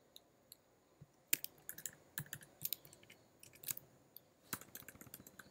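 Typing on a computer keyboard: irregular, quick key clicks that start about a second in.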